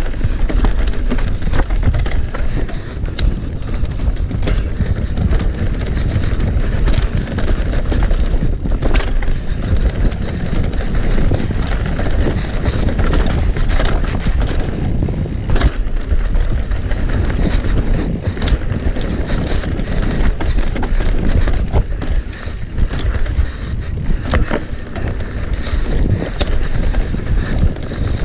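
Mountain bike descending a rough, rooty downhill trail: a continuous rumble and rattle of tyres and frame on dirt, broken by frequent sharp knocks as the wheels hit roots and bumps.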